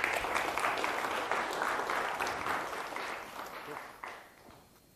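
Audience applauding: many hands clapping together, which fades out about four seconds in.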